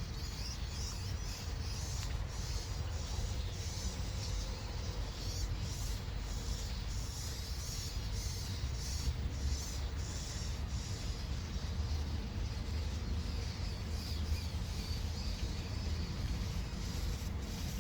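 Steady low outdoor background rumble, with faint, short, irregular high-pitched chirps throughout.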